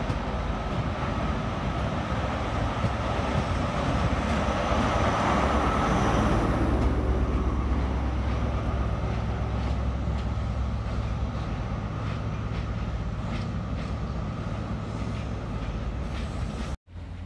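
LNER High Speed Train running past along the platform: the Mk3 coaches rumble by, then the rear Class 43 power car's MTU diesel engine passes, loudest about six seconds in, and fades as the train moves away, with faint wheel clicks over the rail joints. The sound cuts off abruptly near the end.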